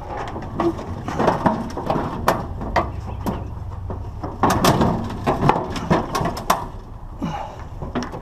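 Scrap being handled and shoved into place: a run of irregular clattering knocks and scrapes.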